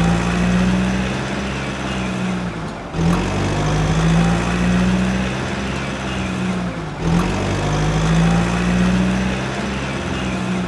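Truck engine sound effect: a steady low engine drone in three stretches of about four seconds each, with a short dip between them, like a looped clip.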